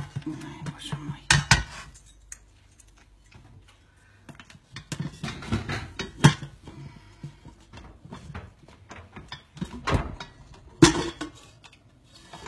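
Metal clinks and knocks of a stainless steel pot and its lid as an African grey parrot pecks and tugs at them with its beak, a handful of sharp knocks spread out with a quieter stretch about two seconds in.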